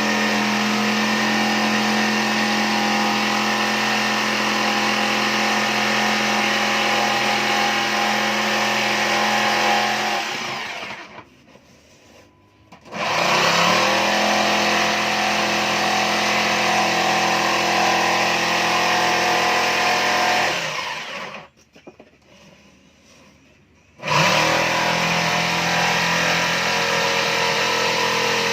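Electric motor of a power tool, run three times. Each time it starts suddenly and runs at a steady high speed for about eight to ten seconds. After the first two runs it winds down, falling in pitch as it coasts to a stop, and the third run starts a few seconds before the end.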